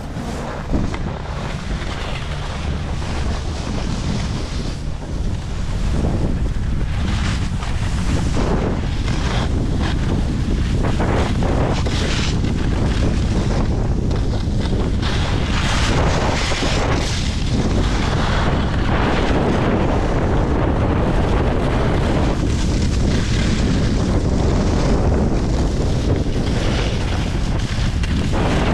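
Wind buffeting the microphone: a steady low rumble that grows louder about six seconds in, with rushes of hiss coming and going.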